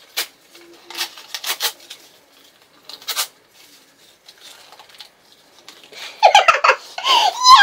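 Paper being torn by hand into small pieces: several short, sharp rips in the first three seconds or so. Voices come in loudly near the end.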